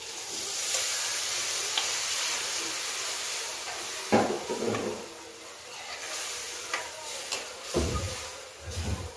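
Water poured into a hot steel kadhai of spiced raw-mango pieces frying in oil: a loud hiss and sizzle that dies down over a few seconds. Then a spoon stirs in the pan, with a few clatters about four seconds in and near the end.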